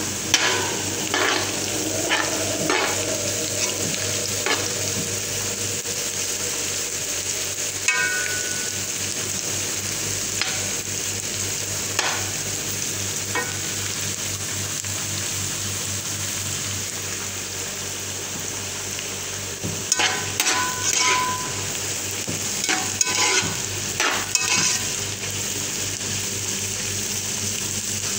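Sliced onions frying and sizzling steadily in a frying pan, with a metal spoon stirring them and scraping against the pan in short bouts, most busily about twenty seconds in.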